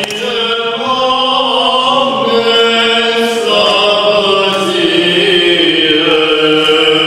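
Orthodox liturgical chant: voices singing long held notes that move slowly from pitch to pitch, sung as the response right after the Gospel reading in the wedding service.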